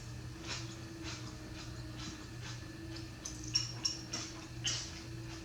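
Close-up eating sounds: irregular wet smacks and clicks of chewing, more frequent in the second half, over a steady low hum.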